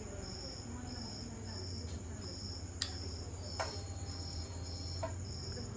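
Crickets chirping in an even pulse, a little under two chirps a second, over a low steady hum. A few sharp clicks come around the middle.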